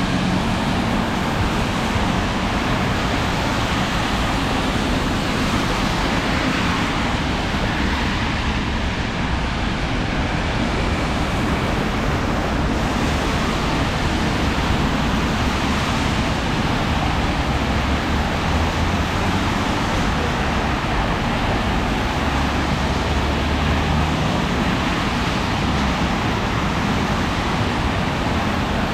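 Steady city traffic noise, with car tyres hissing on the wet road surface in the rain.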